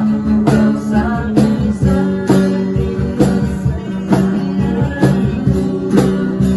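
Background music with guitar over a steady beat, about one strong beat a second.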